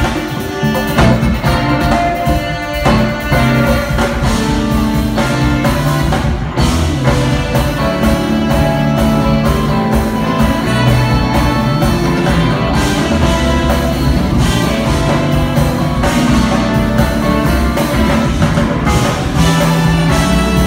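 Jazz-fusion band playing live, with electric guitar and drum kit to the fore and keyboards.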